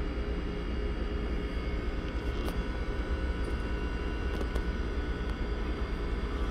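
Boekel Scientific Rocker II (model 260350) laboratory platform rocker running, its motor and rocking drive giving a steady low hum with a few faint ticks.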